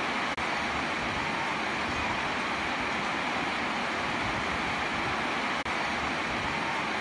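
Steady rain falling on a house roof, an even hiss of many drops, which cuts out for an instant twice.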